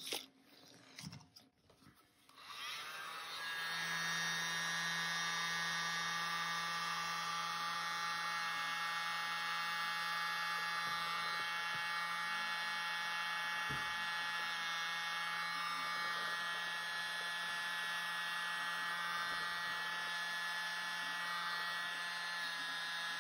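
Small handheld electric mini blower switched on about two and a half seconds in, then running with a steady whine and hum, its air blowing acrylic paint outward to open a bloom and form cells. A few faint handling clicks come before it starts.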